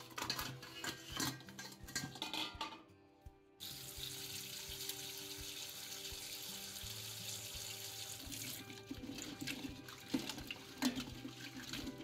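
Tap water running hard into a steel bowl of crab pieces in a stainless steel sink, starting about three and a half seconds in and stopping about five seconds later. Before it, the crab pieces clatter as they are tipped from one steel bowl into another; after it, hands slosh and rub the crab pieces in the water.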